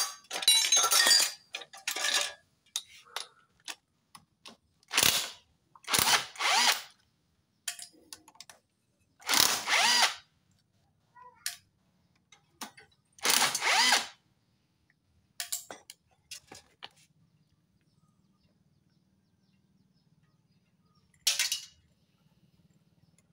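Cordless power driver spinning in a series of short bursts, each a second or less, with pauses between them, as it undoes the bolts on a Honda Supra X125's clutch.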